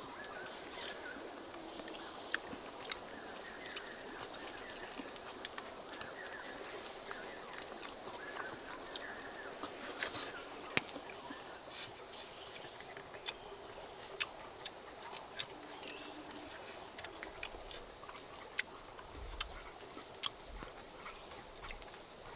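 Forest ambience: a steady high insect drone with scattered bird chirps, broken by many light sharp clicks of bamboo chopsticks tapping against a bamboo tube as food is picked from it.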